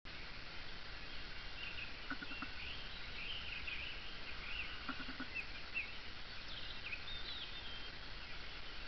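Songbirds chirping and warbling over a steady outdoor hiss. A short, low triple-pulsed call sounds twice, at about two and five seconds in.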